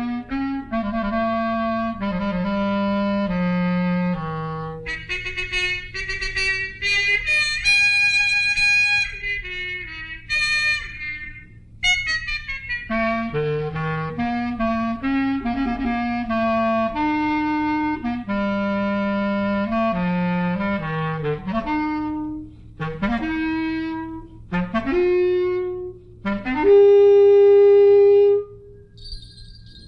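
Film-score music on an old soundtrack: a melody of quick separate notes over a lower moving line. Near the end come several upward-swooping phrases and then a loud held note that cuts off, with a steady low hum underneath.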